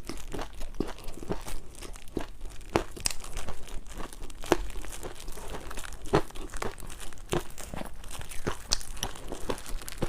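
Ice coated in green tea matcha powder being bitten and crunched: a run of sharp, irregular crunches and cracks.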